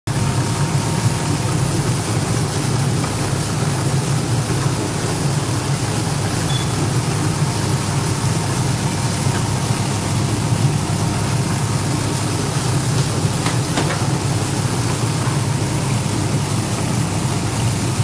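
Vegetable washing and peeling machine running loaded with carrots: a steady motor hum under a constant noisy wash of water and tumbling produce.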